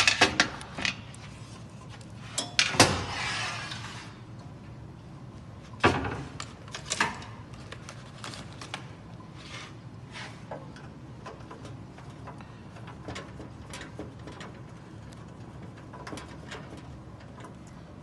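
Scattered clicks and knocks of hard objects being handled around an espresso machine, loudest at the start and around three and six seconds in, with a brief hiss lasting about a second after the knock near three seconds, then only faint ticks.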